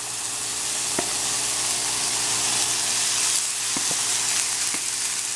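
Carrots, peas and garlic sizzling steadily in oil and soy sauce in a nonstick frying pan as cooked rice is tipped in from a plastic bowl. A few light knocks come from the wooden spoon scraping the rice out, about a second in and again around four to five seconds in.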